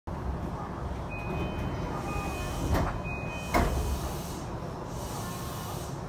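JR East E233-8000 series train's door chime playing its three-part chime as the passenger doors slide open. Two sharp knocks about two and a half and three and a half seconds in, the second the loudest, come from the doors opening. A steady low hum from the stopped train runs underneath.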